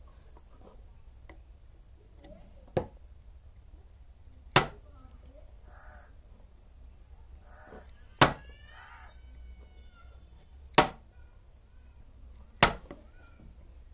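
Five sharp clicks or snaps, each a brief hard strike, spaced about two seconds apart, made by a tool worked on a circuit board while its solder points are cleaned. A faint chirping in the background.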